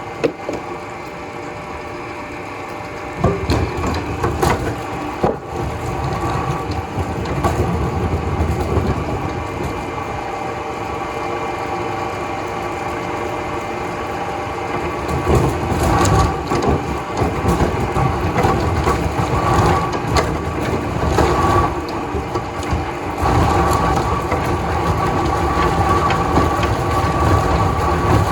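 Wood-processing machinery in a veneer factory running with a steady hum, with wood cracking and splintering as it is worked. There are a few sharp cracks a few seconds in, and the crushing of wood grows louder in the second half.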